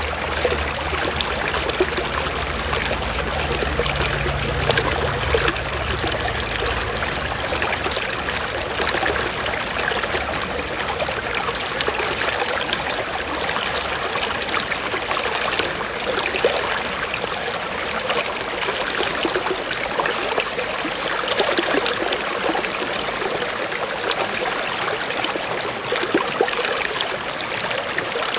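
Water flowing and trickling steadily, like a small stream, with no breaks or changes.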